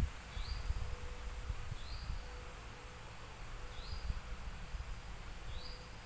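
Forest ambience: a short rising chirp call repeats four times, about every second and a half, over a low rumble of wind on the microphone.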